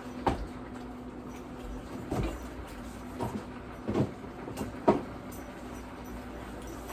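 A few scattered knocks and clunks of things being handled in a kitchen, about five in all, over a faint steady hum.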